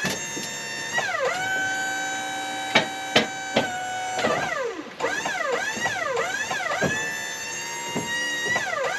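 Whine of the Wood-Mizer LT35 sawmill's hydraulics and engine, holding a steady pitch, then dipping and recovering again and again as the hydraulic controls are worked on the log. Three sharp knocks come in the middle.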